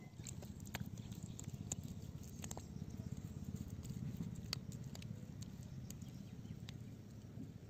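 A hand patting and smoothing wet mud, a fast, soft slapping with a few light clicks.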